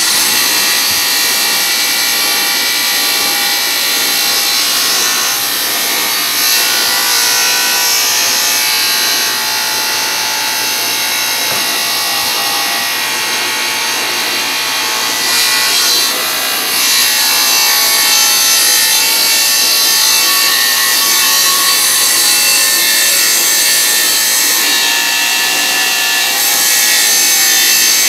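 Electric saw with a narrow blade running steadily and cutting through a wooden board.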